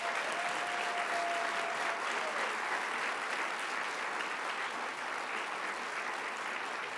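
An audience applauding: many people clapping at a steady level with no let-up.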